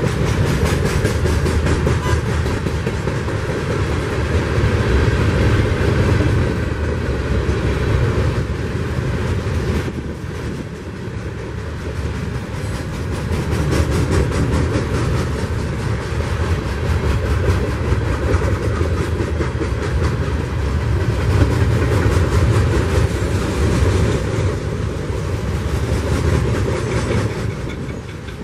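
Herzog ballast hopper cars of a freight train rolling past: a steady rumble of steel wheels on the rails, with a continuous rapid clatter of wheels over rail joints that swells and fades slightly as the cars go by.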